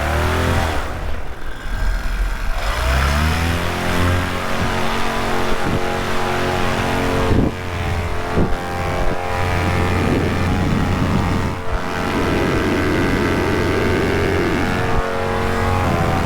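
Paramotor's two-stroke engine and propeller revving up, the pitch rising over the first few seconds, then running steady at high throttle.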